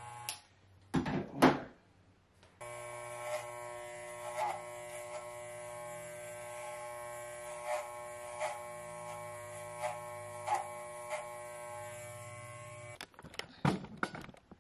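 Electric hair clippers running with a steady buzz while cutting hair, with short louder moments as they bite. They stop just after the start, a few knocks follow, and they run again from about two and a half seconds in until near the end, where a few clicks of handling follow.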